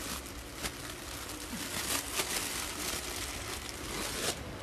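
Crinkly rustling of clothes being handled, a run of many small crackles that stops shortly before the end.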